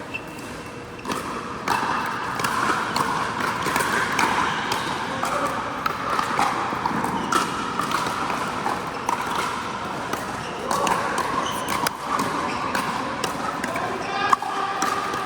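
Pickleball paddles hitting the plastic ball: irregular sharp pops, one louder pop near the end, over the chatter of many voices.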